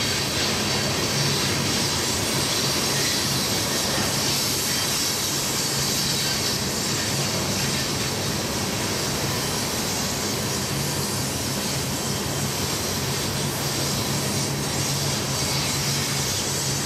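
Freight train of loaded crude-oil tank cars rolling steadily through a curve: a continuous rumble of steel wheels on rail with a steady high squeal of wheels grinding against the curved rail.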